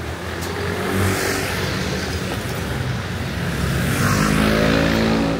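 Two motor vehicles passing close by, the first about a second in and the second, louder one near the end, its engine note rising.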